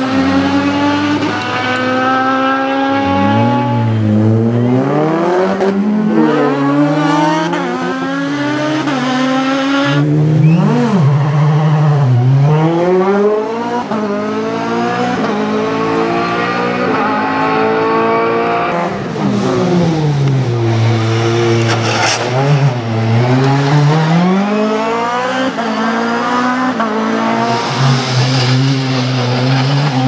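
Race car engines at full throttle, one car after another. The pitch climbs and then drops sharply as each gear change goes in, with stretches where the engine falls and blips as the driver downshifts for corners.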